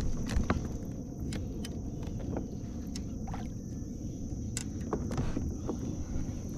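Steady low rumble of wind on the microphone, with scattered light clicks and knocks from the rod, reel and kayak as a hooked fish is reeled in.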